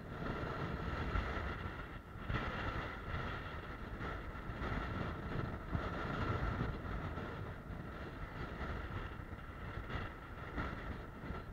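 Wind buffeting the microphone, with the rushing whistle of a D80 dynamic-soaring RC glider flying high-speed loops, swelling and fading about every two seconds as it passes.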